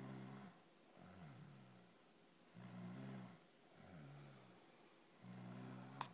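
Slow, rhythmic snoring: a low rasping snore on each in-breath, three of them about two and a half seconds apart, with softer breathing sounds between. A sharp click just before the end.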